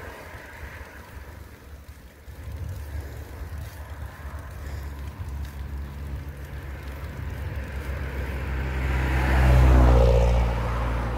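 A motor vehicle approaching along the road and passing close by: its engine and tyre rumble grows steadily louder, is loudest about ten seconds in, then eases off.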